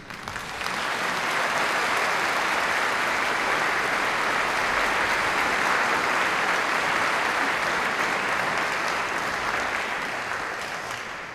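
Audience applauding: the clapping builds within the first second, holds steady, then fades away near the end.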